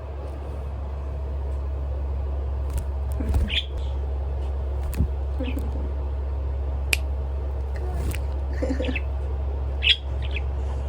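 Pet budgerigars giving a few short, scattered chirps over a steady low hum, with a few sharp clicks in between.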